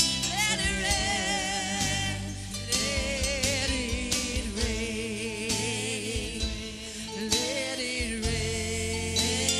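Live gospel-style worship music: a voice holds long, wavering notes over a band with drums and bass.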